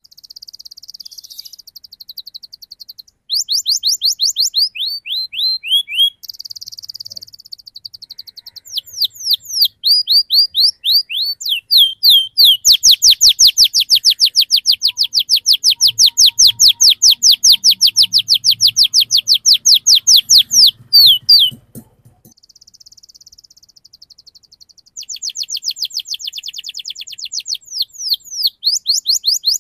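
Domestic canary singing a fast, high song of rolls and trills. Quick descending notes alternate with buzzy rolls, and in the middle comes a long, loud, even trill of about six or seven notes a second.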